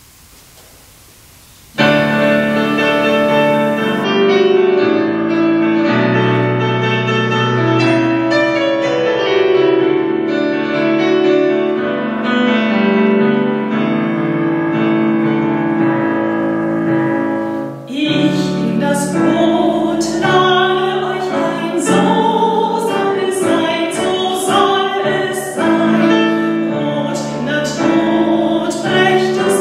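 After a short quiet pause, a digital piano plays a hymn introduction. About two-thirds of the way in, singers join it, a soprano clearly heard among them, singing a German hymn to the piano accompaniment.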